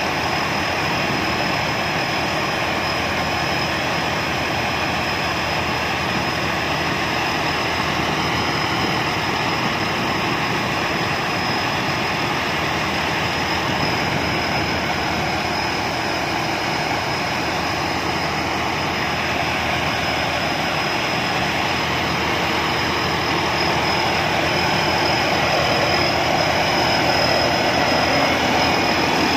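Rice combine harvester's diesel engine running steadily while it unloads threshed grain into a truck, with a thin steady high whine through it. It gets slightly louder over the last few seconds.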